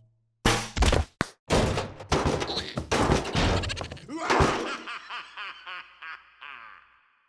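Two quick thuds, then two cartoon larvae laughing hard together in bursts that gradually die away toward the end.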